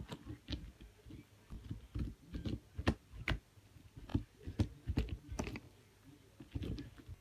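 Fingers poking and squeezing a sprinkle-studded cereal slime on a tabletop: an irregular run of short sticky pops and clicks, each with a dull knock, with a brief lull near the end. The slime is not properly activated.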